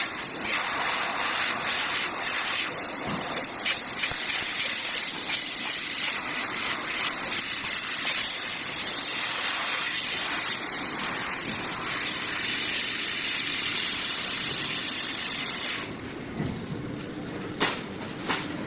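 Laser cutting machine cutting sheet metal: a loud, steady hiss of high-pressure assist gas blowing through the cutting head, which cuts off suddenly about sixteen seconds in. Two sharp clicks follow near the end.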